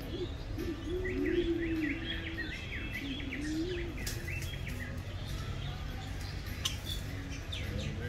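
Birds chirping in quick high twitters through the first few seconds, with low, smooth cooing of doves beneath them, over a steady low rumble.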